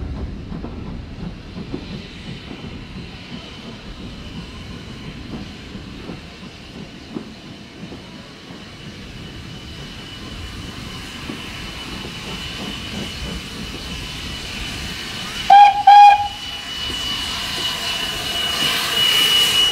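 Steam train running, a low rumble with a thin high whine that grows louder toward the end. About fifteen seconds in, the locomotive's whistle gives two short, loud blasts.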